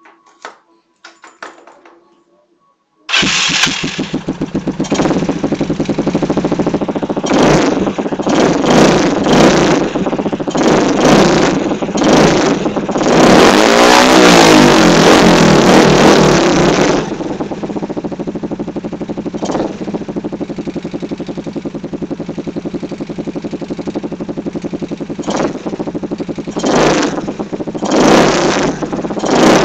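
Yamaha Mio scooter's single-cylinder four-stroke engine with an extreme 'Nobi Sound' aftermarket exhaust: a few light clicks, then the engine starts abruptly about three seconds in. It idles loudly and is blipped on the throttle again and again, held at high revs for a few seconds around the middle, then settles back to idle before more blips near the end.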